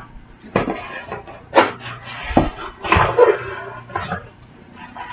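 A box being opened by hand and its packaging handled: irregular rustling and scraping with about five sharp knocks, then a longer rustle near the end.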